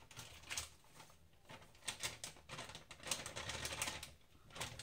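Irregular light clicks and scrapes of a kitchen utensil against a pan or bowl, in short clusters with brief pauses, while more gram flour is added to the ghee.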